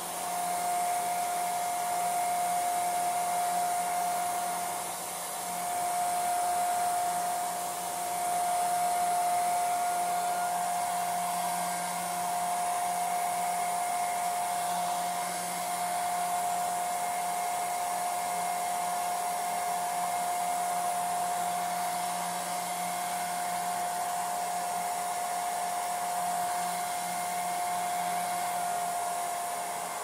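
Handheld hair dryer running continuously: a rush of blowing air with a steady whine, the level rising and falling a little as the dryer is turned about.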